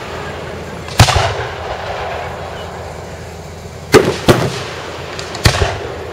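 Aerial fireworks bursting: four loud booms, one about a second in, two in quick succession near four seconds, and one more about a second after that, each echoing away.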